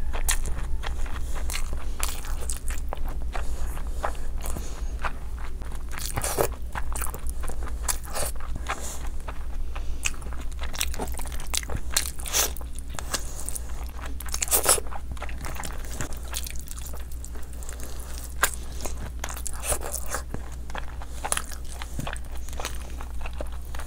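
A person chewing and eating rice and curry by hand, with wet mouth sounds and many short smacks and clicks.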